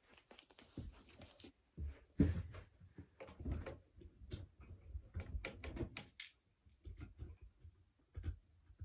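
Irregular clicks, knocks and soft thumps of someone moving about and handling objects, with the louder thumps a few seconds apart.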